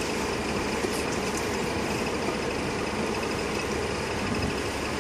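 Open safari game-drive vehicle driving along a sandy dirt track: the engine running steadily under the even rumble and rattle of the ride.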